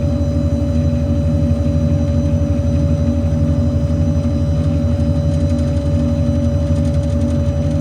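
Ford 6.7 Power Stroke V8 diesel running with the PTO engaged, driving the truck's hydraulic air compressor: a steady, even engine running with a constant whine over it.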